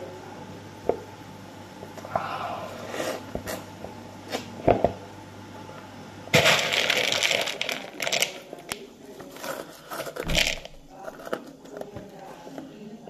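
Crunchy potato sticks rattling and clicking in a bowl as fingers dig through them, and crunching as they are eaten. There are scattered sharp clicks at first, then a loud, dense stretch of crackling from about six seconds in to about ten.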